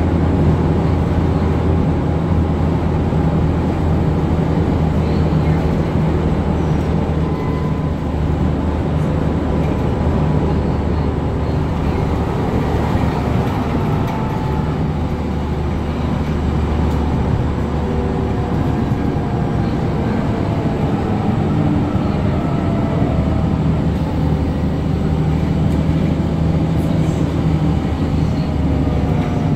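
Cabin sound of a 2007 New Flyer D60LFR articulated diesel bus under way: its Cummins ISM diesel engine drones steadily with a faint whine that slides slowly in pitch. The engine note weakens somewhat about halfway through and builds again later.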